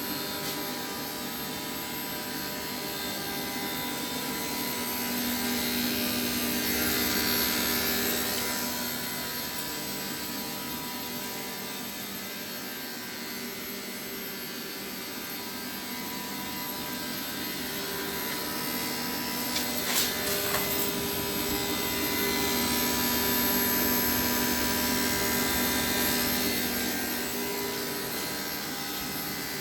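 A 48 V DC compressor and its condenser cooling fan running steadily on a test run of a solar-powered ice block machine: a steady hum with a few held tones over a fan rush, swelling and easing in loudness, with a sharp click about twenty seconds in.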